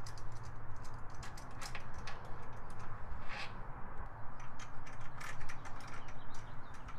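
Ratchet with an 11 mm socket on an extension, clicking as it loosens intake manifold bolts: a run of short, uneven clicks from the pawl and the metal socket.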